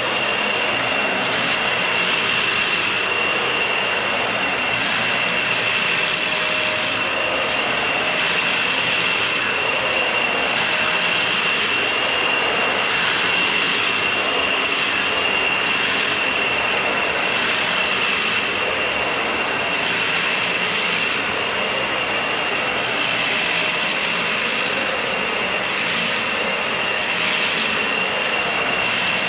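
Vacuum cleaner running steadily on a shaggy rug, with a constant high whine over the rush of air. The upper hiss swells and eases every second or two as it works across the pile.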